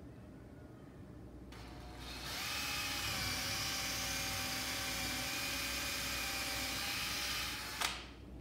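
Electric drill boring a hole straight down into a thin piece of wood. The motor spins up about two seconds in and runs at a steady whine for about five seconds, then stops, followed by a short sharp noise.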